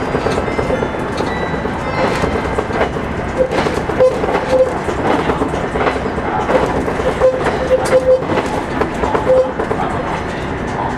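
Cabin of a JR Shikoku 2000 series diesel tilting express train running: a steady rumble of wheels and running gear, with irregular clicks and knocks from the track.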